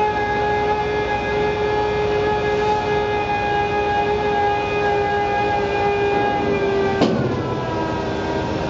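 Liebherr LB36 drilling rig running, its engine and hydraulics giving a steady high-pitched whine. A sharp clank comes about seven seconds in, and the whine dips slightly in pitch around it.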